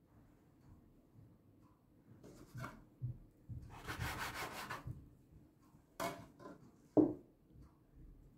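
A dough cutter's blade scrapes across a wooden cutting board as it cuts through soft risen dough, with a longer scrape about halfway through. Two sharp knocks follow near the end.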